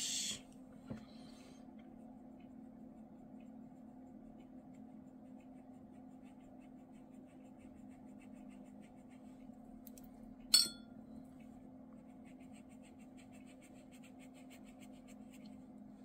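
Watercolour round brush working paint out of a half pan and stroking it across watercolour paper: faint, soft scratching over a steady low hum. One sharp clink about ten and a half seconds in.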